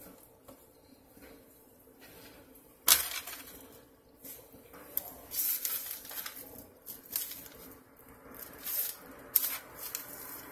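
Hands breading raw flounder fillets on a paper sheet over a plate: paper rustling and dry mix brushed and patted onto the fish. About three seconds in comes a sharp slap or knock, the loudest sound, and from about five seconds on there is a run of short rustles and pats.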